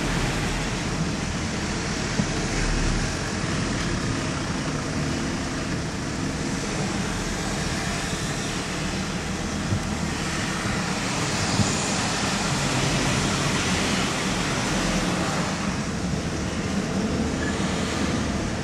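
Car engine and tyre noise heard from inside the car as it drives along a ferry's enclosed steel car deck: a steady rumble, with two brief knocks past the middle.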